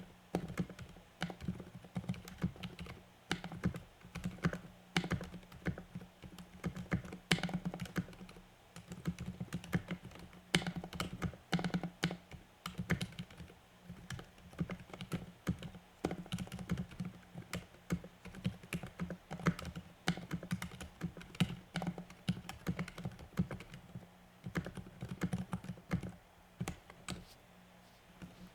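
Typing on a Ducky Mecha Mini mechanical keyboard with lubed Cherry MX Silent Red switches: a continuous, irregular run of keystrokes with brief pauses between bursts.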